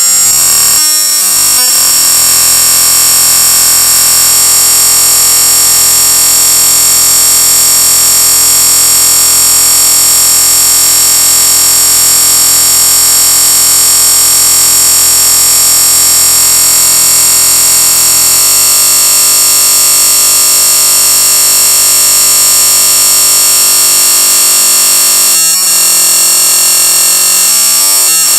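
Marbles spinning around in a bowl, making a loud, harsh, steady high-pitched whir. It shifts in tone about two-thirds of the way through and breaks off briefly twice near the end.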